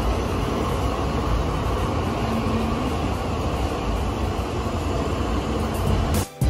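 City tram running past on its street track, heard as a steady rumbling noise over the street's background hum. The sound cuts off abruptly near the end.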